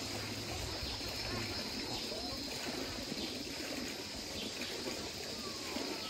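Water of a hot-spring stream running and trickling steadily over small cascades, with faint voices in the background.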